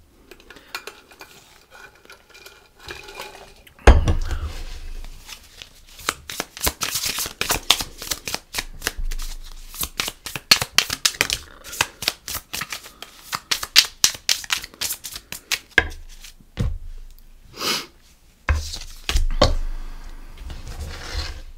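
A deck of tarot or oracle cards being shuffled by hand: a long run of rapid crisp clicks and slaps, with a single knock about four seconds in and a short pause near the end.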